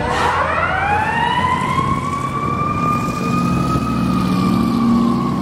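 Fire engine siren winding up, its pitch rising over about two seconds and then holding steady as the truck pulls away, over the low rumble of the truck's engine.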